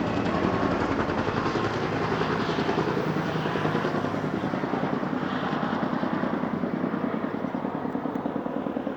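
Military helicopter running nearby, its rotor making a fast, steady chopping pulse over the engine noise; its sound is described as a strange noise ("ruido raro").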